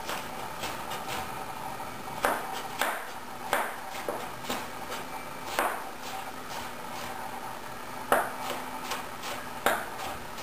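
Chef's knife chopping green bell pepper on a cutting board: irregular sharp knocks of the blade striking the board, the loudest about eight seconds in.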